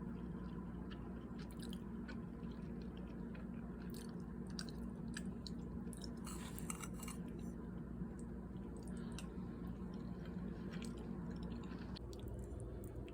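A person chewing a mouthful of cheesy macaroni pasta, with scattered soft mouth clicks and a brief denser patch of them about halfway through.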